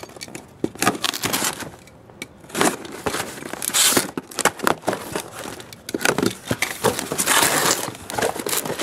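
Utility knife slitting the tape on a cardboard shipping box, then the cardboard flaps pulled open: a run of irregular scrapes, crackles and crinkles.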